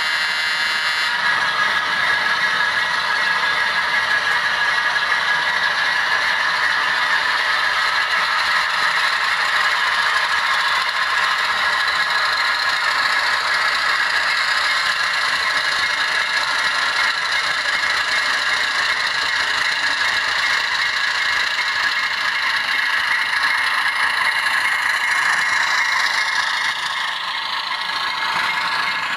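HO scale Atlas ALCO RS-1 model locomotive running: a steady whir of its motor and gears with the wheels clattering over the track, easing off a little near the end as it moves away. A short buzzing tone sounds in the first second.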